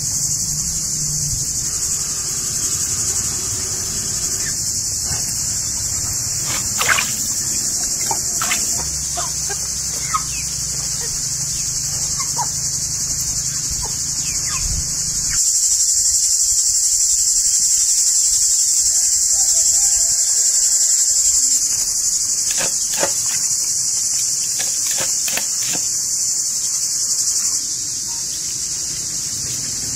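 A steady, high-pitched insect chorus, louder for several seconds in the middle. Over it come scattered short splashes and wet handling sounds as lamb tripe is rinsed and squeezed by hand in a basin of water.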